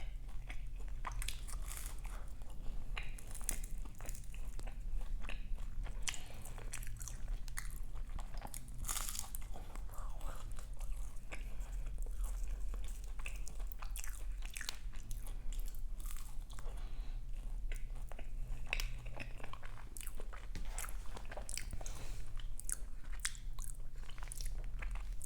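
Close-miked chewing of crisp, flaky bakery pastry: a steady run of small crunches and crackles, bite after bite, over a low steady hum.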